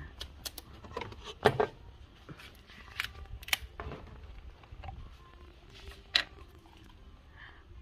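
Scattered clicks and knocks of plastic motor-oil bottles being handled and tipped into a funnel over the engine bay during an oil refill, over a low steady rumble.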